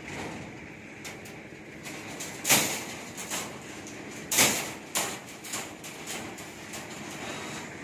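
Steel binding wire being twisted around rebar crossings: a run of sharp scrapes and clinks of wire on steel bars, the loudest about two and a half and four and a half seconds in.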